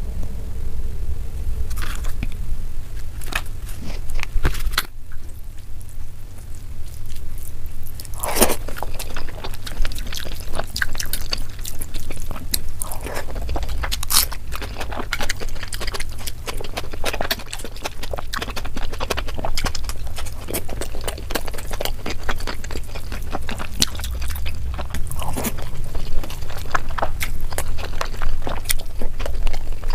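Close-up eating sounds sped up to double speed: rapid wet chewing and biting with some crunches, and fingers scraping and mixing rice on a plate, over a steady low hum.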